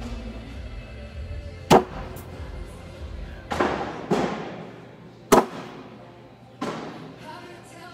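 Cornhole bags thudding onto the wooden board close by, several landings a second or two apart, the two sharpest about 2 s in and just past 5 s. Background music plays throughout.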